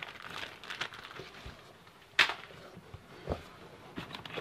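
Plastic-wrapped fireworks packs being handled and set down in a cardboard box: faint rustling and light clicks, with a sharp knock about two seconds in and a duller knock about a second later.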